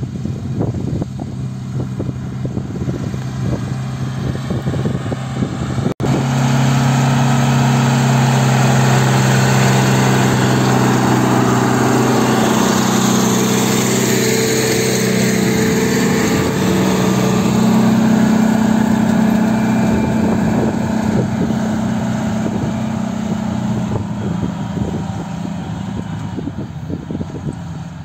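John Deere 3140 tractor's six-cylinder diesel engine running steadily under load while pulling a three-furrow plough through the soil. After a brief dropout about six seconds in, the engine is louder and closer, then it eases off again near the end.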